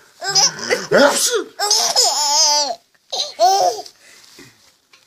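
A man sneezing "achoo", then a baby laughing in high-pitched peals, twice, the second peal short.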